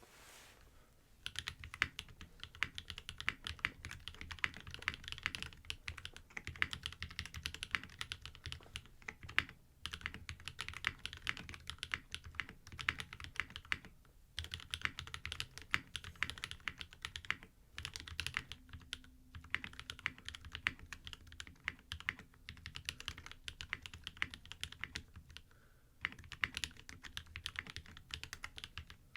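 Fast typing on a custom mechanical keyboard, a Geonworks F1-8x with a 1 mm aluminium plate, lubed NK Cream/Tangerine/Gateron Milky Top frankenswitches and GMK keycaps. The keystrokes come in quick, continuous runs of several seconds with brief pauses between them, starting about a second in.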